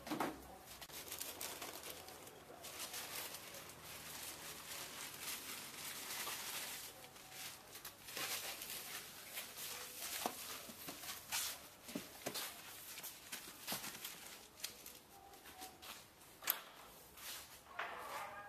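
Hands-on cleaning and handling noise: rustling, scraping and light clicks, with a sharp knock just after the start and another near the end.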